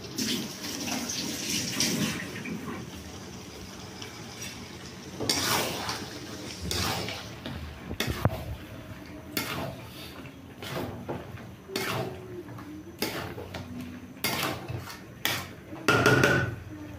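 A flat metal spatula scraping and knocking against a metal kadhai as chili chicken is stirred and tossed with its sauce and vegetables, in repeated uneven strokes. A frying sizzle is strongest in the first couple of seconds.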